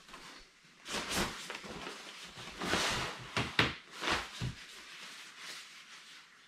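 Crinkling and rustling of a nylon Exped dry bag being handled, stuffed with clothing and its top folded and rolled shut, in a string of short scrunches that die down near the end.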